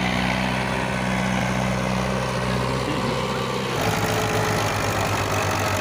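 Farm tractor diesel engine running steadily. A little under four seconds in, the sound changes abruptly to another tractor engine with a choppier low note.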